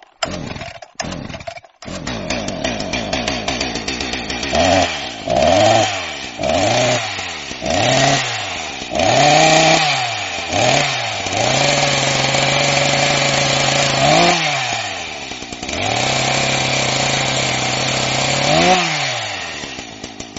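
Chainsaw engine catching after a few short sputters and settling to an idle. It is then revved up and down in a series of quick throttle blips and held at full throttle twice for a few seconds, dropping back to idle near the end.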